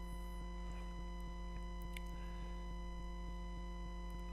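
Steady electrical mains hum and buzz: a set of constant tones with a fine, fast ticking in them. A single faint click about two seconds in.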